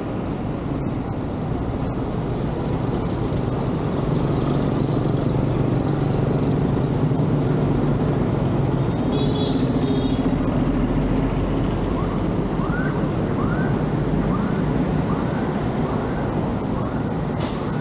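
City street traffic: buses, cars and motorbikes running past, with a bus engine humming louder through the middle. A brief high beep comes about nine seconds in, and a string of short rise-and-fall chirps, roughly one every half second, sounds over the traffic in the last few seconds.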